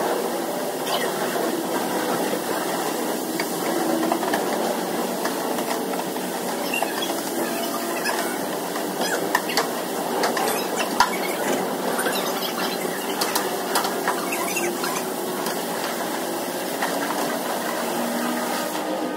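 A wash mitt scrubbed over a soapy car body, with scattered squeaks and clicks over a steady hiss.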